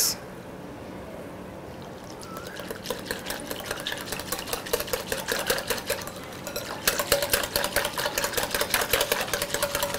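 Wire whisk beating a thin yogurt, chickpea-flour and water batter in a glass bowl: rapid clicking of the wires against the glass with liquid sloshing. It starts about two seconds in and gets busier later on.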